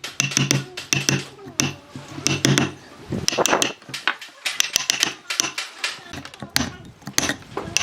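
Quick irregular taps and clicks mixed with voices.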